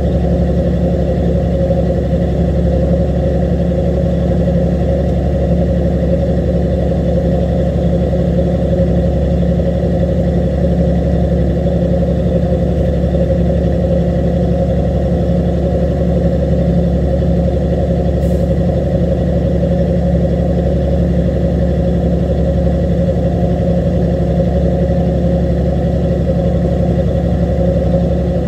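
A fishing boat's diesel machinery running steadily: a constant low drone with no change in speed.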